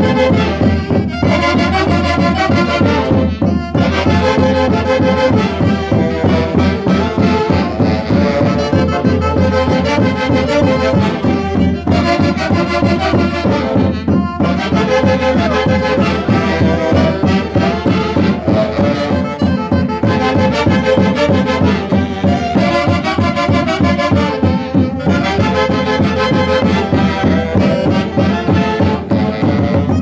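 Andean Santiago festival dance music from a live folk orchestra: melody on wind and brass instruments over a steady beat, playing without a break.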